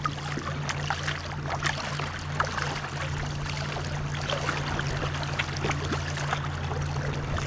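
Paddles dipping and pulling through river water beside a war canoe, with irregular splashes and drips over a steady low hum.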